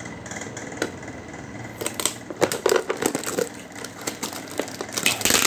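Taped plastic packaging being pulled and worked open by hand, crinkling and crackling irregularly, with a louder burst of crinkling about five seconds in.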